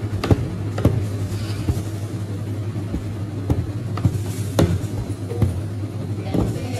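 Busy kitchen ambience: a steady low hum, like a running exhaust hood or burner, with irregular clinks and knocks of utensils and cookware.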